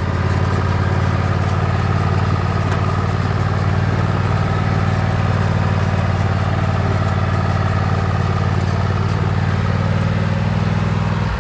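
Husqvarna LGT2654 lawn tractor engine running steadily as the tractor is driven along.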